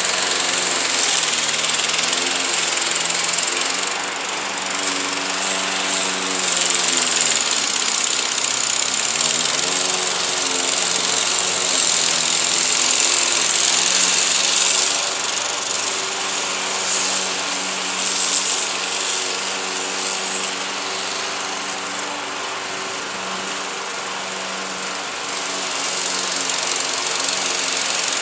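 Craftsman 21-inch push mower's Briggs & Stratton 550 series (140cc) single-cylinder engine running under load as it cuts thick, overgrown grass. Its pitch sags about eight seconds in and then picks back up.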